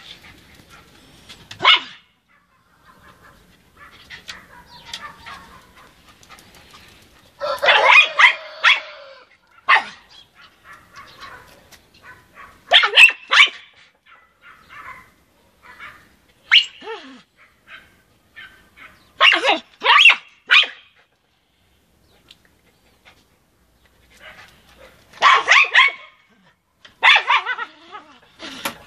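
Small dog barking at a wooden fence in short volleys of a few sharp barks, one every few seconds, with quieter stretches between.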